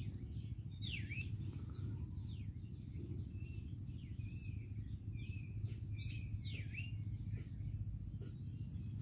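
Faint bird chirps, short falling and V-shaped calls coming every second or so, over a steady low hum and a thin, high, steady whine.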